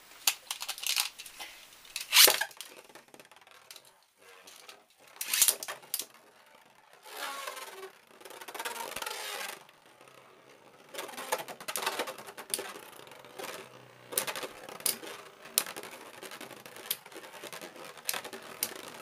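Beyblade spinning tops whirring and clashing in a plastic stadium: sharp clacks as they strike each other and the stadium wall, the loudest about two seconds in, with a stretch of steady scraping spin in the middle and quick clacks again near the end.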